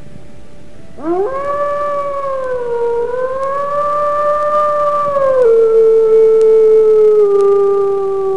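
Grey wolf howling: one long howl that sweeps sharply up about a second in and wavers, then drops to a lower pitch about halfway through and slides slowly down.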